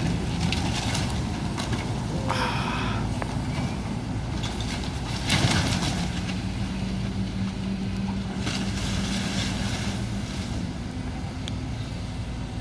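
Demolition excavator's diesel engine running steadily while structure comes down in several bursts of crashing, crunching debris, the loudest about five seconds in.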